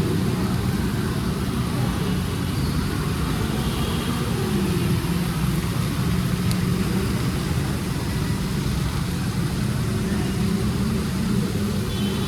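Road traffic: vehicle engines running and passing over a steady hiss, with no break.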